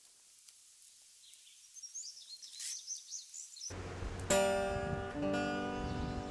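Faint bird chirps, then about four seconds in an acoustic guitar starts up: a run of single picked notes that ring on.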